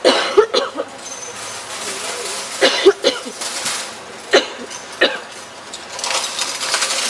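A series of loud, sharp bangs and clanks at irregular intervals, then a fast rattling clatter that builds near the end.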